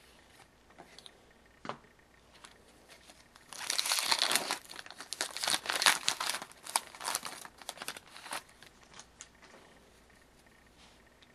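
Crinkly plastic wrapper being crumpled and torn, a dense run of sharp crackles lasting about five seconds, starting a few seconds in after some faint clicks of handling.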